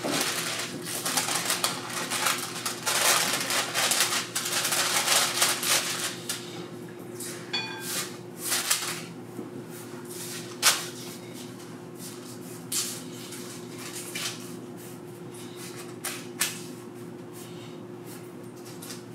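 Spatula stirring and scraping granola across a parchment-lined metal baking sheet: dense rustling and scratching for the first six seconds, then scattered scrapes and taps. There is a sharp knock about ten and a half seconds in and another near the end.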